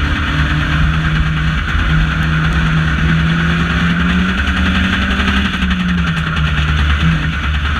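Banger racing car's engine running on the throttle, heard from inside the stripped-out cabin, its pitch rising a little about halfway and then falling back, over a steady hiss.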